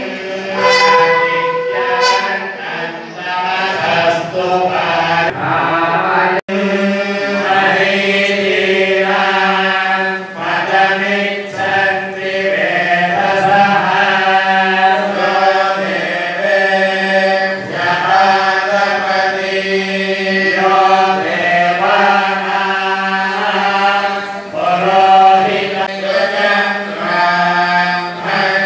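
A group of priests chanting Sanskrit mantras in unison, many men's voices on a steady low reciting pitch. The sound drops out for a moment about six seconds in.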